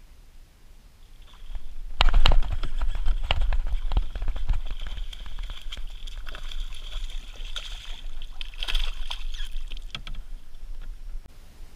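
Reed and grass stems rustling, crackling and scraping against the plastic kayak hull as they are grabbed and pushed through, with some water sloshing. The crackling starts suddenly about two seconds in and dies away near the end.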